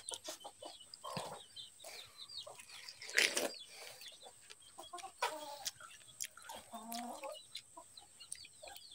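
Chickens clucking, with pitched calls about five and about seven seconds in. Scattered small clicks run throughout, and a short louder noise comes about three seconds in.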